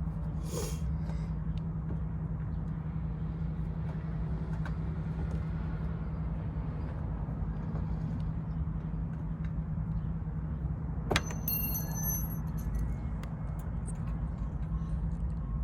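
Steady low hum of a running vehicle engine. About eleven seconds in, a single sharp metallic clink rings briefly.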